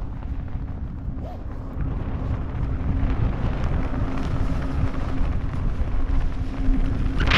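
Wind rushing over the camera microphone of a skydiver flying under an open parachute canopy, with a steady low hum underneath. The rush grows louder about two seconds in and flares sharply just before the end.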